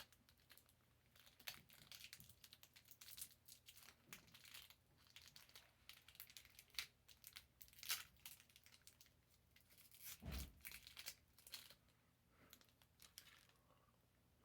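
Faint crinkling and rustling of a snack wrapper being handled, in scattered small crackles, with a soft low thump about ten seconds in.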